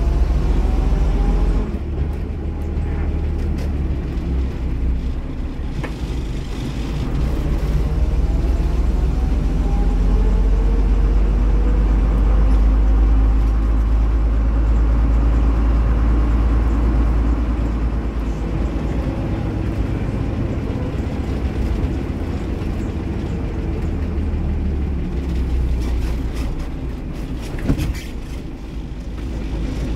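Bristol RELH6L bus's rear-mounted Leyland O.680 six-cylinder diesel engine working hard under way, a heavy low rumble with its note rising and falling as the bus accelerates and changes gear, and a short sharp knock near the end.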